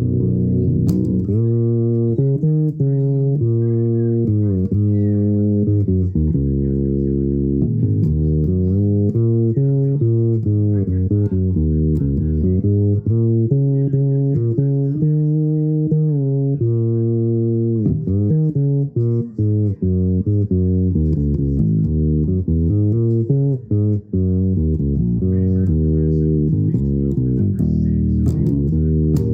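Improvised instrumental music in a low register: a stream of sustained notes and chords, changing every half second or so, with a couple of brief breaks about two-thirds of the way through.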